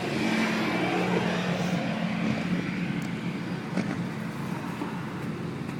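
Steady low mechanical hum, like a running vehicle, over street traffic noise, with a couple of faint clicks about three and four seconds in.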